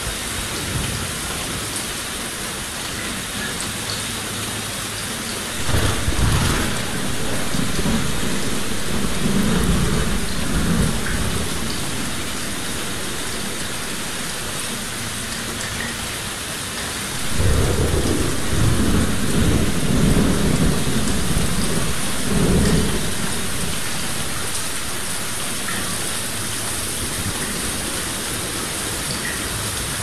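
Steady heavy rain hissing down on forest leaves, with long low rolls of thunder: one about six seconds in, and a louder one from just past the middle that lasts several seconds.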